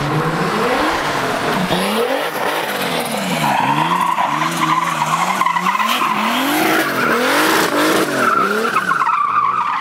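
Drift car sliding sideways in circles, its engine revs rising and falling over and over as the throttle is worked, and its rear tyres squealing steadily, loudest from about three and a half seconds in.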